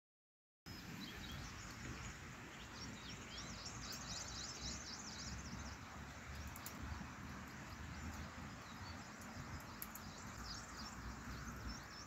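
Faint wild birds chirping in quick repeated trills over a steady outdoor background hiss, starting after a moment of dead silence.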